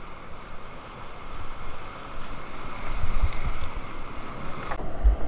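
Whitewater rapids rushing and churning around a kayak, with water and wind buffeting the helmet-camera microphone in low thumps. Near the end the sound turns suddenly duller as the low buffeting grows heavier.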